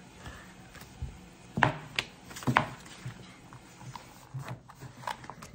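Knocks and taps from a paperback book being handled and set down: three sharp ones between about one and a half and two and a half seconds in, and a few softer ones near the end.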